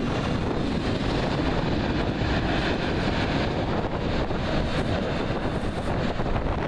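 Double-deck TGV high-speed train running past and drawing away: a steady rush of wheel and running noise, a little brighter in the middle as the rear power car goes by, with wind buffeting the microphone.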